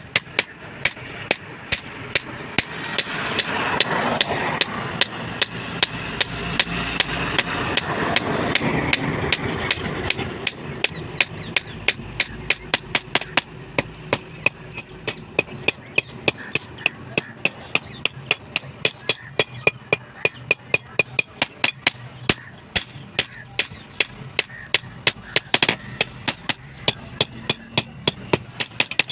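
Blacksmith's hammer striking hot steel on an anvil in a steady run of about two to three ringing blows a second, with a rushing background noise that is louder for the first ten seconds or so.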